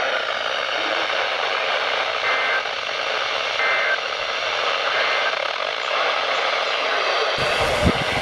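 Steady static hiss from a radio receiver on a weak or empty signal. Near the end it cuts off abruptly to a burst of low rumbling thumps.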